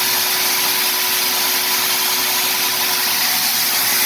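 Wet/dry shop vacuum running steadily with a constant motor whine, sucking the old sand out of a pool sand filter tank.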